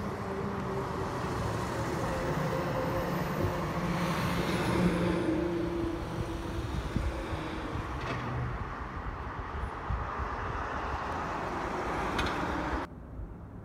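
E-One Typhoon fire engine and a Ford F-250 brush truck driving past on an emergency response. Engine and road noise swell as they come by, loudest about halfway through, then cut off abruptly near the end.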